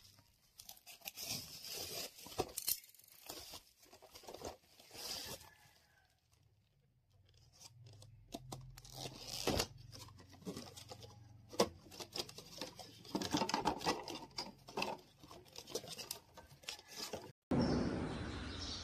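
Plastic mailer bag and packaging being torn open and handled: irregular rips, rustles and crinkles in clusters, with a quieter stretch about six seconds in. Near the end it cuts abruptly to a steadier background noise.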